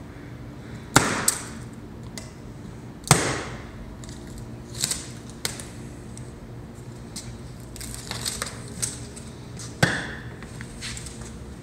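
Plastic strapping bands around a plastic shipping case being snipped with hand cutters, each cut a sharp snap. The three loudest come about a second in, about three seconds in and near the end, with lighter clicks and knocks between.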